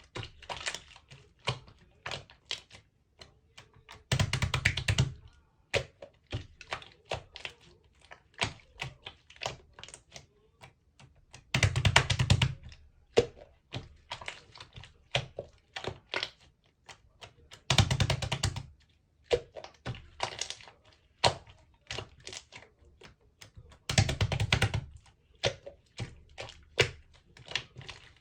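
Clear slime being worked by hand, making rapid sticky clicks and pops. About every six seconds comes a longer, louder bout of crackling squishing as it is pressed or folded.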